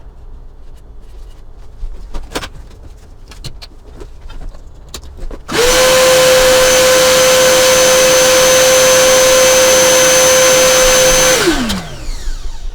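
CNC router spindle motor starting up, running at a steady high-pitched whine for about six seconds, then winding down with a falling pitch. A few faint clicks come before it starts.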